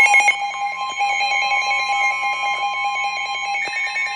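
Emergency Alert System two-tone attention signal (853 and 960 Hz) sounding steadily, the alarm that comes before a warning message is read. Other higher electronic tones and rapid data-like chirps are layered over it, with a burst of chirps right at the start and a new higher tone coming in near the end.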